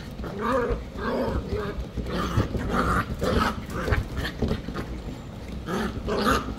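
Several dachshund puppies play-fighting, giving a string of short high-pitched yips in quick bursts.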